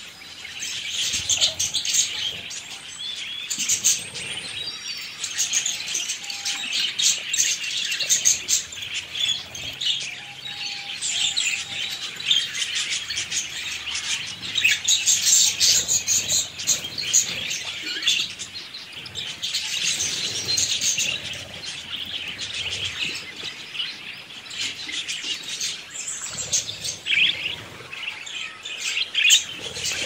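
Budgerigars chirping and warbling without pause, a dense stream of short high chirps that swells and fades in loudness.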